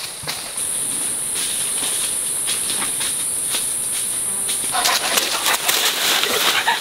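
An insect's steady high-pitched buzz over scattered crackles in the forest. About five seconds in, the buzz stops and a louder rustling and crackling of leafy branches and dry leaves takes over as the branches are set down on the leaf litter.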